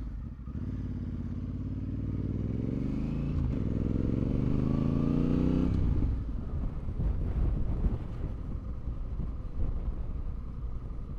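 Honda Africa Twin 1100's parallel-twin engine accelerating, its pitch rising for about five seconds with a brief dip midway at a gear change. Then the throttle closes and the engine runs rougher at lower revs.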